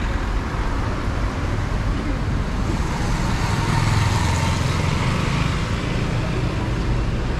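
Street traffic: cars and motorcycles running past, one vehicle swelling to the loudest point about halfway through before easing off.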